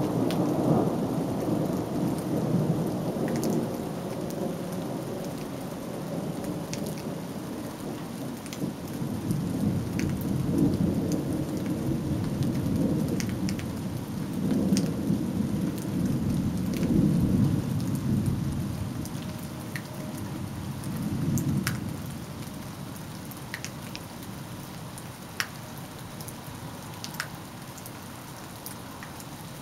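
Thunder rumbling in long rolls over steady rain, with scattered sharp ticks of drops. The rumble swells several times, then dies away in the last several seconds, leaving the rain.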